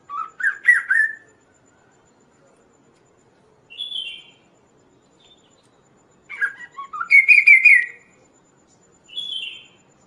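Kaso-kaso (chestnut-capped babbler) song: four whistled phrases. Two are quick runs of notes stepping upward, one at the start and one about six seconds in, and each is followed a few seconds later by a shorter, higher phrase.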